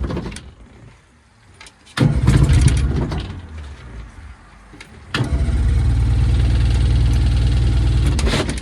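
Honda four-stroke outboard on its manual choke, being started after sitting unused: it fires briefly about two seconds in and dies away, then catches a little after five seconds and runs steadily for about three seconds before stopping near the end.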